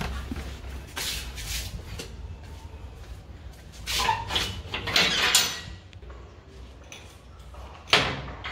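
Steel grille security gate being handled: metal latch and bolt rattling and the gate clanking, with one sharp clank near the end.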